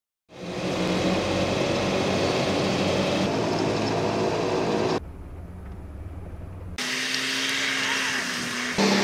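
Off-road 4x4 engines running in a string of short edited clips: a steady engine heard from inside the cab, with the sound changing abruptly every second or two to other engines at a mud hole.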